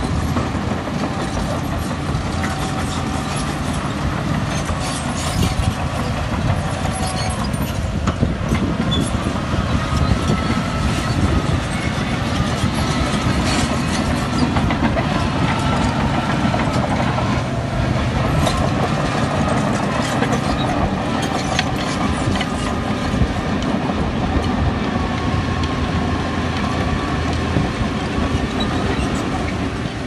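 Crawler bulldozer at work: its diesel engine running steadily under load while its steel tracks clank and squeal, with scattered sharp metallic clicks.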